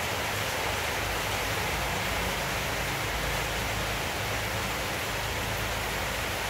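Steady rushing hiss of background noise, even throughout, with no distinct events.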